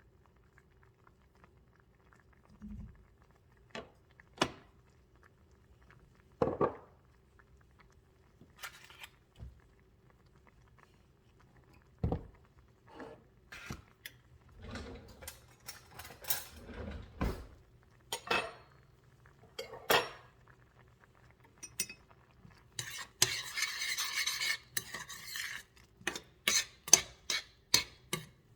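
Kitchen utensils knocking and clinking against dishes and bowls in scattered, irregular strikes, with a couple of seconds of continuous scraping about three-quarters of the way through, then a quick run of clinks.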